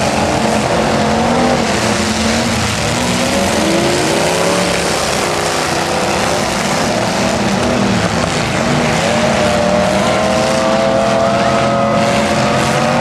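Several pickup truck engines revving and labouring as the derby trucks push and ram each other. The engine pitch rises and falls, with one long climb in the second half, over a dense, steady din.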